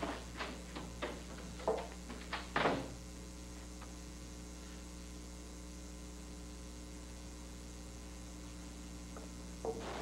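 Steady electrical mains hum, with a handful of sharp knocks and taps in the first three seconds, footsteps and a door as someone goes out. Surf noise comes in right at the end.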